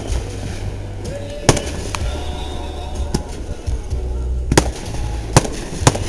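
Aerial firework shells bursting overhead: several sharp bangs at uneven intervals, the loudest about a second and a half in and again near the end.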